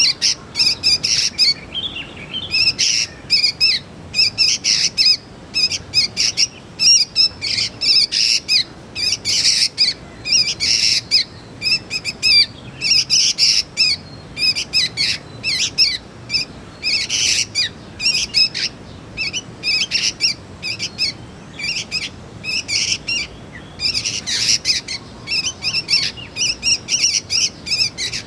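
Young sooty-headed bulbuls calling: a rapid run of short, shrill chirps, repeated almost without pause.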